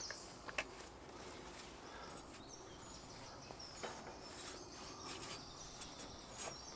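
Faint soft rubbing of a hand spreading oil over raw pizza dough, with a few light clicks.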